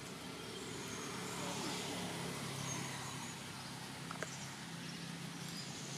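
Steady low hum of a distant engine over outdoor ambience, with a single faint click about four seconds in.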